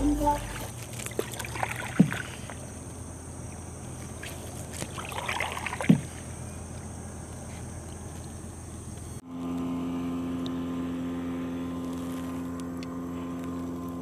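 Small wooden boat moving along a river: a soft swish of water with two sharp knocks, about two and six seconds in. After a cut, a steady droning hum with several pitches takes over.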